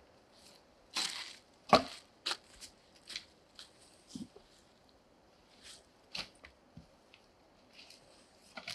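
Footsteps crunching and rustling through dry fallen leaves, uneven and spaced out, with one sharper knock about two seconds in.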